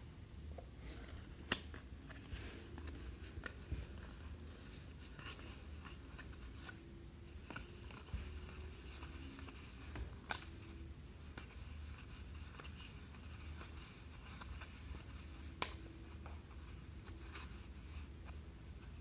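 2019 Topps Allen & Ginter baseball cards being handled and flipped through by hand: faint rustling and scattered small clicks of card stock, with a few sharper clicks. A low steady hum runs underneath.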